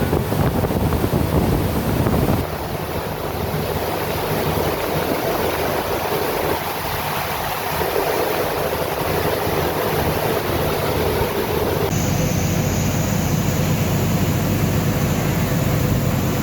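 Wind noise on the microphone with a steady low hum beneath it, the sound changing abruptly twice.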